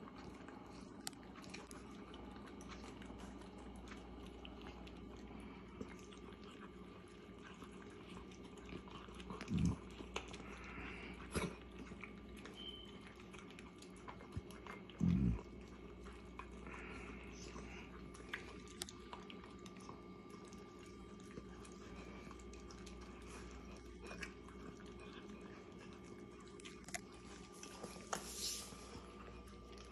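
Two Yorkshire terriers eating from food bowls: quiet chewing and small clicks of food and bowls, with a few dull thumps, the loudest about ten and fifteen seconds in.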